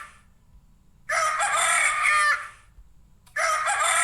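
Rooster crowing, its cock-a-doodle-doo repeated: one full crow about a second in and another beginning near the end.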